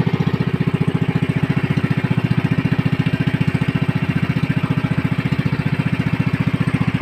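Small fishing boat's engine running steadily, with an even, rapid pulse of about ten beats a second.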